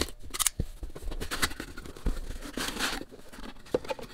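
Utility knife blade cutting through the seal of a small cardboard box, with scraping and tearing, followed by the cardboard lid and flaps rustling and scraping as the box is opened.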